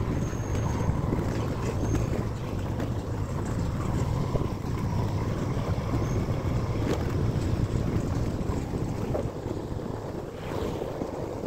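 Vehicle on the move: a steady low engine and road rumble, with wind buffeting the microphone.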